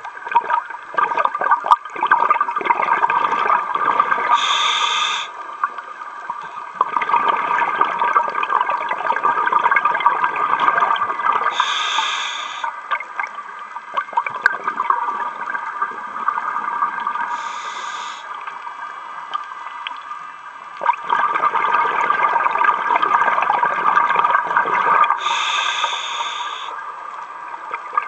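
Scuba diver breathing through a regulator underwater: long stretches of bubbling exhaust alternating with four short hisses from the regulator, about every six to seven seconds.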